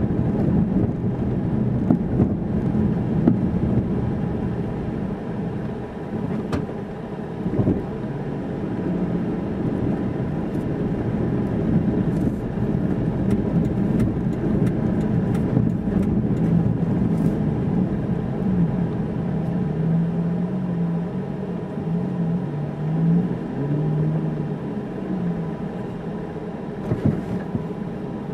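Car driving slowly, heard from inside the cabin: a steady low rumble of the engine and tyres on a paving-stone street, with the engine note wavering up and down in the second half and a few light clicks.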